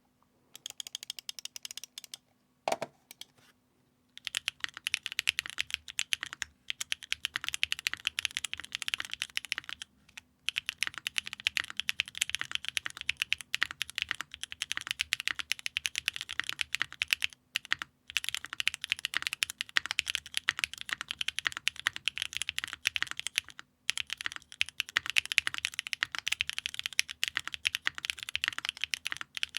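Typing on a Luminkey80 mechanical keyboard with a PC plate, stock Kailh BCP switches, thin case foam and GMK ABS keycaps: quick runs of keystrokes, broken by a few short pauses.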